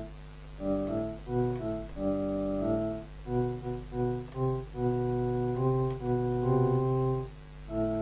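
Improvised solo on an electronic keyboard: a line of short, evenly held notes stepping up and down over a steady low tone. A fuller held chord comes back in near the end.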